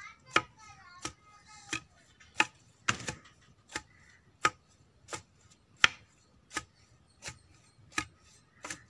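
A pestle pounding a mix of fresh medicinal leaves (tulsi, thumbai and neem) in a traditional mortar, crushing them for a steam-inhalation remedy. It lands in a steady rhythm of sharp strokes, about one every 0.7 seconds, some noticeably louder than others.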